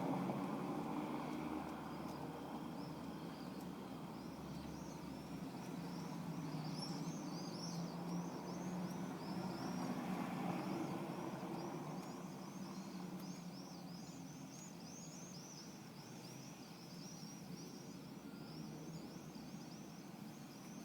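V8 engine of a BMW 745i with a custom exhaust running with a low steady hum that gradually fades. Birds chirp over it in quick repeated calls.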